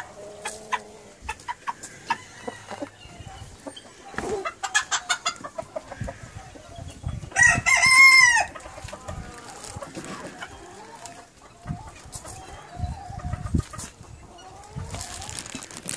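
Chickens clucking in a pen, with a rooster crowing once about halfway through, the loudest sound.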